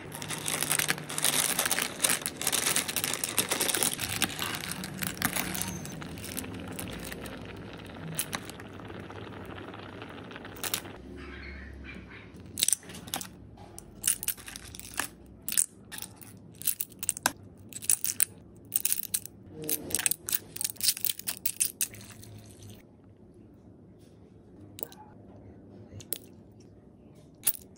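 A spoon stirring clam soup in an electric hot pot with a dense noise for the first ten seconds or so. Then many sharp clicks of clam shells and a metal spoon against a ceramic bowl, thinning out to a few clicks near the end.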